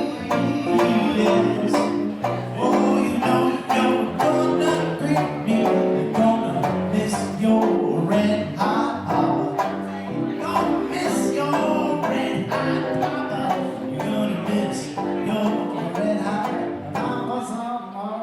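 Jazz band playing an instrumental passage with plucked strings to the fore over a steady beat of sharp strokes.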